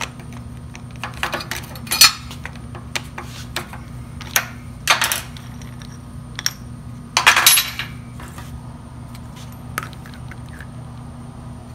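Metal clicks and clanks of a spanner wrench on an angle grinder's flange nut, and of a cutoff wheel and a flap disc being taken off, put on and set down on a steel welding table. The clanks come in ones and short clusters, the loudest about two seconds and about seven seconds in.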